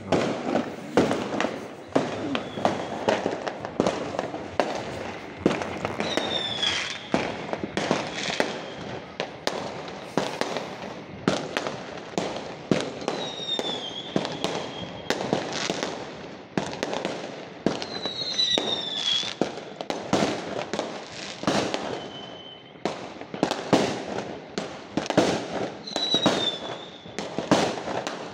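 Fireworks display: a continuous, irregular barrage of bangs and pops, with a few high whistles that fall in pitch, about four times.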